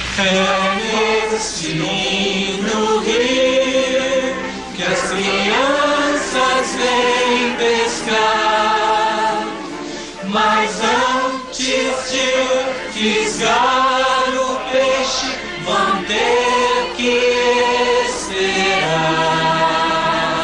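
Music with a choir singing, the voices sliding up in pitch several times.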